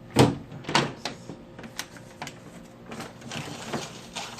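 A series of sharp knocks and clatters, the loudest just after the start and another under a second in, then lighter knocks and a brief rustling scrape around three seconds in.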